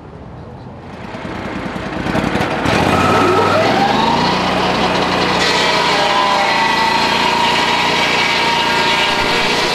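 Lucas portable swing-blade sawmill's engine building up with a rising whine a few seconds in, then running steadily under load as its circular blade cuts along a plane-tree log.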